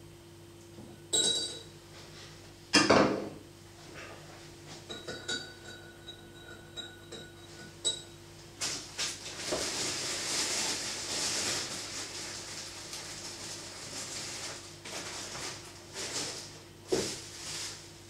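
Handling of a metal wristwatch: two sharp clinks and knocks in the first few seconds, a faint steady tone lasting about three seconds, then several seconds of rustling with scattered small clicks.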